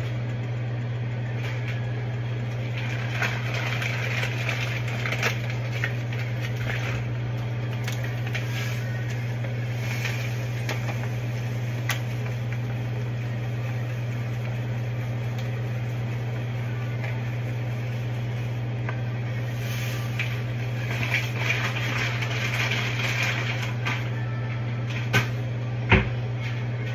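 Steady low hum of a kitchen range hood fan. Over it come bouts of rustling and light clinks from pots and packaging being handled, and a sharp clack about a second before the end.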